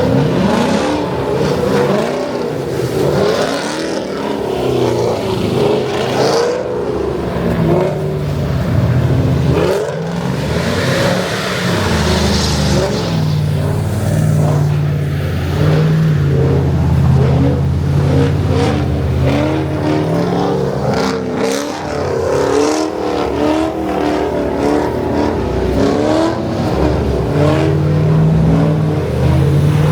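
Cammed Camaro V8 being revved hard, its pitch rising and falling again and again, with a few stretches held at steady revs, as the car slides in snow.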